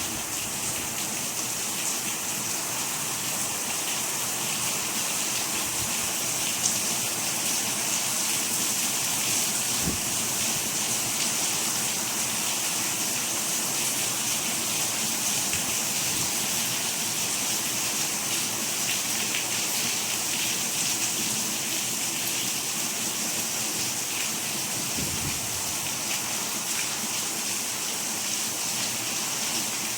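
Steady, heavy rain falling: an even, bright hiss with no pauses.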